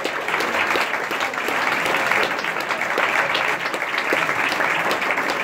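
Hall crowd applauding steadily, a dense patter of many hands clapping.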